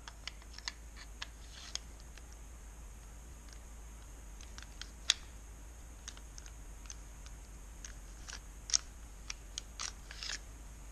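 Scattered light clicks and taps as the parts of a disassembled Ruger LCP pistol are handled, with two sharper clicks about five and nine seconds in and a brief rustle near the end.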